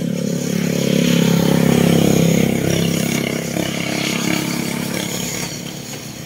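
A passing vehicle's engine, growing louder to a peak about two seconds in and then fading away.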